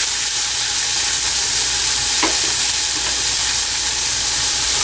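Chopped onion, ginger and garlic sizzling in hot oil in a pan while being stirred with a spoon: a steady high hiss of frying.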